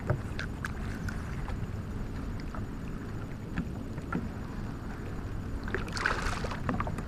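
Steady low rumble of wind and water on a kayak, with scattered light clicks and a brief rustle about six seconds in, as tackle and bait are handled.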